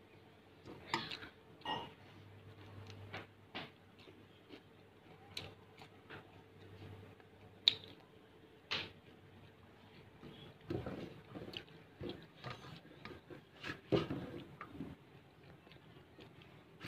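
Fingers mixing and scooping rice on a stainless steel plate, with irregular small taps, clicks and scrapes against the metal and a few louder knocks.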